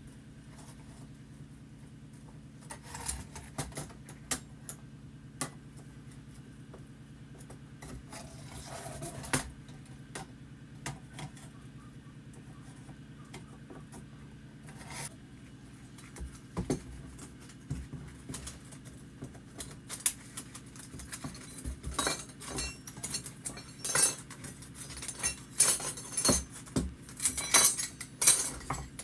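Small metal and glass parts of an old candle lamp clinking and knocking as they are handled and taken apart. The clinks come scattered at first and grow busier and louder in the second half, over a steady low hum.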